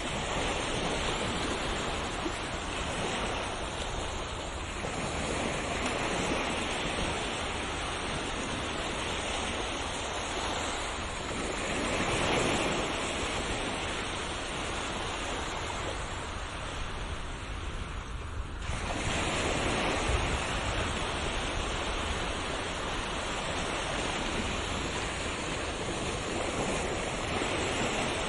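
Sea waves breaking and washing in: a continuous wash of surf that swells and eases every few seconds, with a brief lull about two-thirds of the way through.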